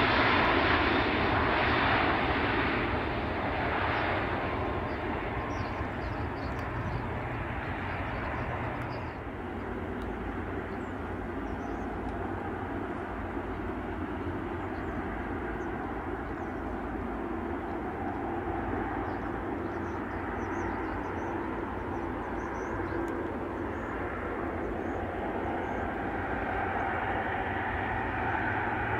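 A Bombardier CRJ regional jet's rear-mounted turbofans run loud on the landing rollout and fade over the first several seconds. Then comes a steadier, quieter aircraft drone as a twin-turboprop airliner approaches to land, growing louder near the end as it touches down.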